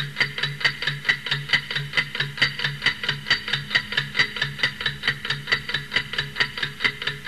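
Clock-ticking sound effect timing a ten-second countdown, steady and fast at about four ticks a second, over a low pulsing tone.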